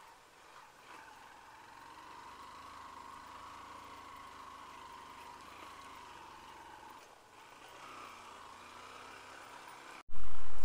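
Faint, steady engine hum with a held, slightly wavering tone. About ten seconds in, it cuts abruptly to a much louder low rumble.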